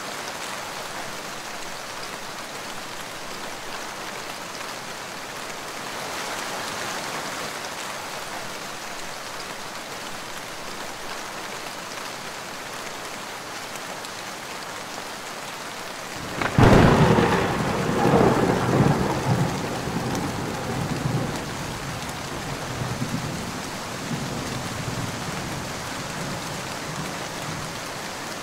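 Rain sound recording: steady rainfall, then a sudden loud thunderclap a little past halfway that rumbles away over several seconds.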